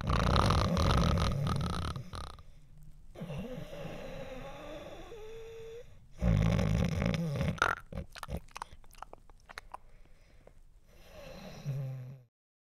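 A man snoring loudly in his sleep: two long loud snores about six seconds apart, with quieter breathing out between them, and a weaker snore near the end.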